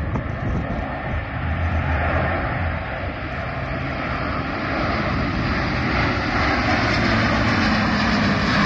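Airbus A400M Atlas's four turboprop engines and eight-bladed propellers running at display power, growing steadily louder as the aircraft comes overhead.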